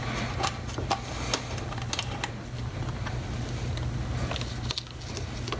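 Light scattered clicks and taps of a Harley-Davidson Shovelhead oil bag drain bolt being unscrewed by hand, with a plastic catch cup held beneath it, over a steady low hum.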